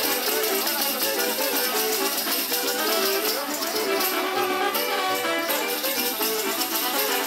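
Band music with brass playing a melody, and a rattle shaking steadily over it.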